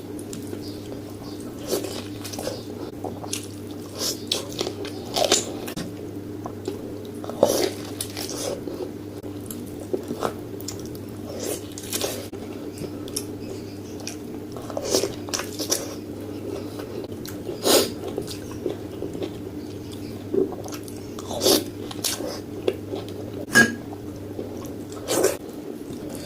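A person chewing and biting into pork ribs close to the microphone, with irregular crunches and mouth clicks. A steady low hum runs underneath.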